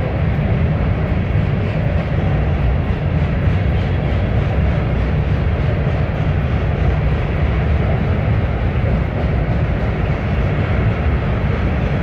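Covered hopper cars of a freight train rolling past over a girder bridge: a steady rumble of steel wheels on rail, with no single clank or horn standing out.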